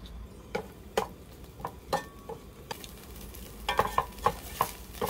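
Fried rice sizzling in a stainless steel pot on a portable gas burner while a plastic spatula stirs it, knocking and scraping against the pot. The sizzle builds about halfway through, and the knocks come faster near the end.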